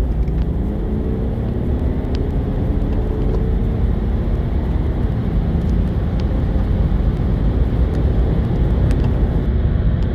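Diesel car accelerating at full throttle, heard from inside the cabin: the engine note rises over the first few seconds under a heavy low rumble of engine, road and wind noise.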